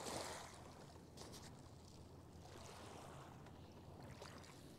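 Near silence: a faint steady background hush with a few soft clicks.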